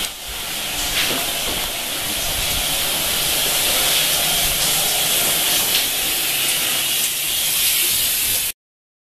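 Dorm shower running: a steady hiss of water spray that grows a little louder, then cuts off suddenly near the end.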